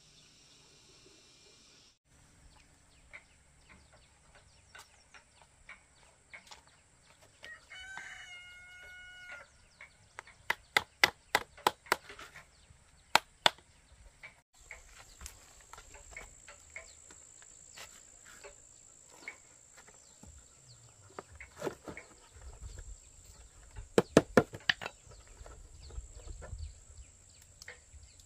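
A rooster crows once, about eight seconds in, holding one steady note for over a second. The loudest sounds are sharp knocks: a run of about eight a couple of seconds after the crow, and a fast cluster near the end.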